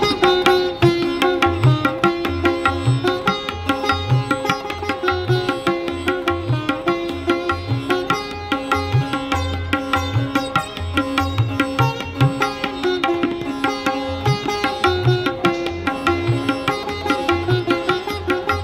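Sitar and tabla playing together: a rapid run of plucked sitar notes over its ringing drone strings, with a steady rhythm of deep tabla bass strokes beneath.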